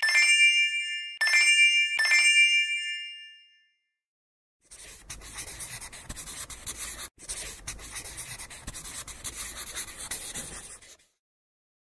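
Three bright bell-like chimes, each ringing out and fading, over the first three seconds. After a short silence, a felt-tip marker scratches steadily across paper for about six seconds, with one brief break.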